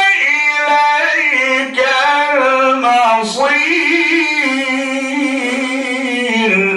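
A man's voice reciting the Qur'an melodically: a long, drawn-out phrase with ornamented, wavering pitch, broken twice by short pauses, that falls and ends just at the close.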